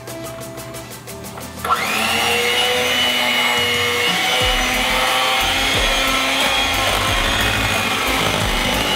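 Electric hand mixer switched on just under two seconds in, its motor whine rising as it comes up to speed, then running steadily with the beaters in thick cake batter. Background music with a beat is heard alone before the mixer starts.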